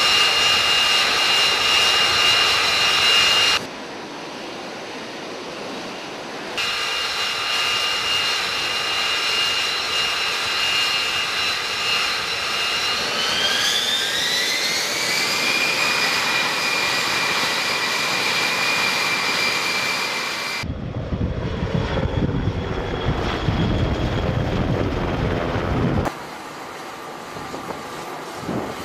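F-35 fighter's jet engine running with a steady high whine, its pitch rising over about two seconds partway through as it spools up. The whine breaks off briefly early on, and later gives way to a low rumble for several seconds.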